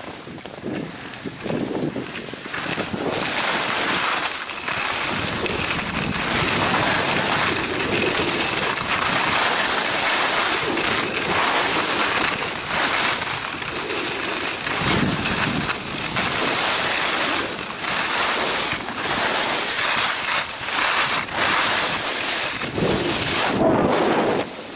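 Skis hissing and scraping over packed snow on a downhill run, mixed with wind buffeting a handheld camcorder's microphone. The noise builds over the first few seconds, then rises and falls.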